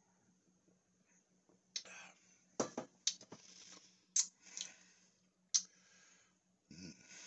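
Mouth sounds after a swallow of beer: a string of short lip smacks and breathy exhales. One louder knock about two and a half seconds in fits the glass mug being set down on the table.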